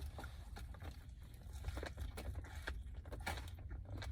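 Close-miked eating sounds of a spicy chicken sandwich: irregular soft clicks and crunches of chewing.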